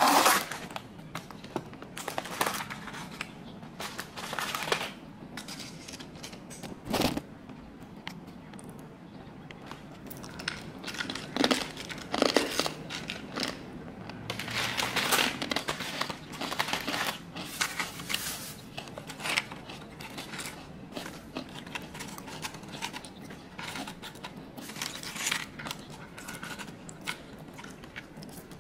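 Plastic food packaging crinkling and rustling in irregular bursts, with scattered light clicks and knocks as items are opened and handled.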